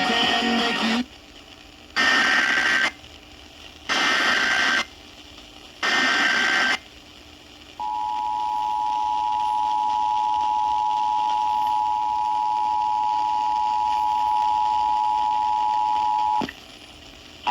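Emergency Alert System test signal received on AM radio with background hiss. Three short warbling SAME header data bursts come about a second apart. About eight seconds in, the steady two-tone EAS attention signal starts and holds for about nine seconds, then cuts off with a click near the end.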